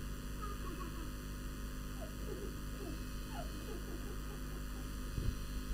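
Steady electrical hum on the recording, with a scatter of faint short falling chirps in the middle.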